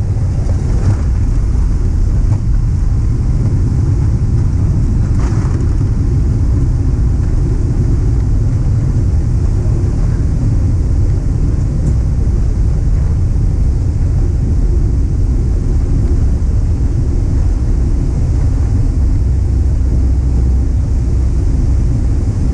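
Loud, steady low rumble inside the cabin of a Boeing 777-300ER during the landing rollout, as the wheels run along the runway with the spoilers raised. There are faint knocks about one and five seconds in.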